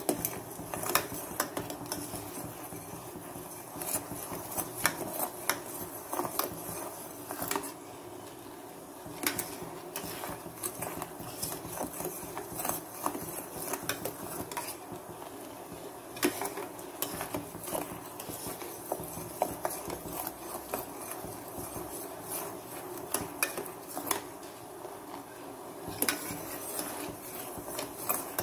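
Steel spoon stirring black sesame seeds in a steel pan, scraping and clinking irregularly against the metal.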